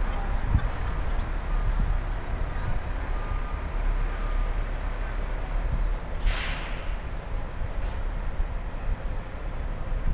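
Street traffic noise, a steady low rumble, with a short sharp hiss about six seconds in.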